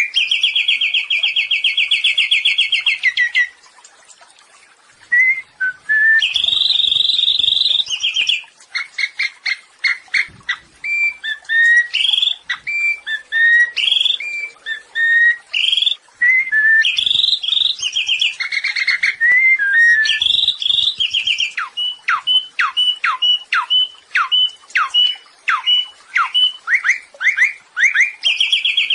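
A samyong songbird singing a loud, varied song of fast repeated trilled notes, whistled phrases and quick downward-sweeping notes, with a short pause about four seconds in.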